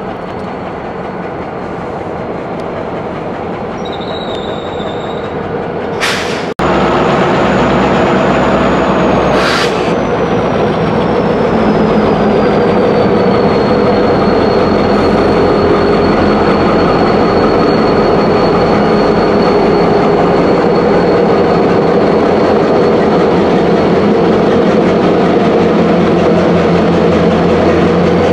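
A string of railroad tank cars rolling along the yard track with a steady rumble of wheels on rail. Over it a thin, high wheel squeal slides down in pitch and then holds steady. Two sharp metallic clanks come about a quarter and a third of the way through.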